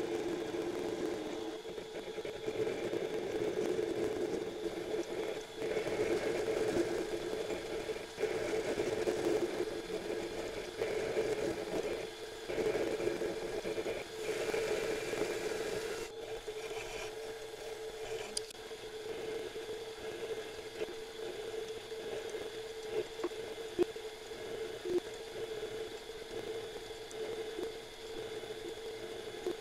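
Mini metal lathe running with a steady hum while the cutting tool scrapes away at aluminium bolt stock as the carriage is fed by hand. About halfway through the cutting noise drops off, leaving the lathe humming with a few light clicks.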